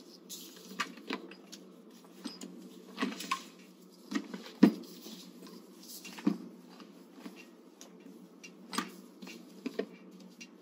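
Handling noises during a bed bath as the legs are washed: scattered light knocks, taps and rustles, the sharpest knock about halfway through.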